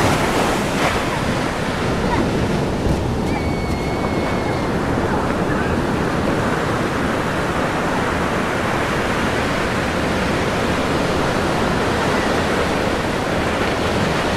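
Ocean surf washing onto a beach, a steady rush of noise, with wind noise on the microphone.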